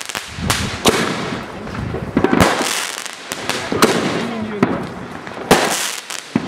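Fireworks going off: a string of sharp bangs, roughly one every second or so, over a continuous hiss and crackle of burning stars.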